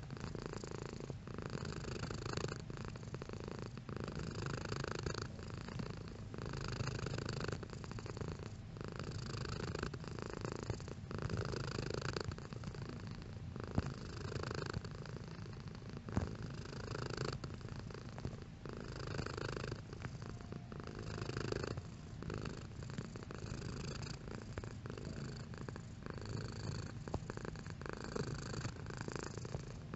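Domestic cat purring steadily, in regular cycles of about a second and a half, each broken by a brief pause between breaths.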